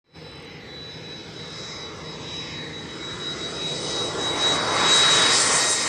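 Boeing T-7A Red Hawk's single GE F404 turbofan running as the jet rolls along the runway, a steady jet rush with a thin high turbine whine. It grows louder as the jet comes closer, loudest about five seconds in.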